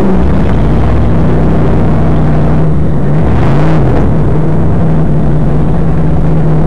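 Tough truck's engine running hard at high revs, heard loud from inside the cab. The revs flare up and fall back once, about three and a half seconds in.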